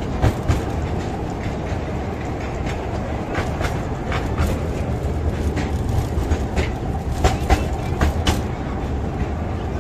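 A miniature ride train running, heard from aboard: a steady rumble of wheels on track, with irregular sharp clicks and knocks as the wheels cross rail joints and the carriage rattles.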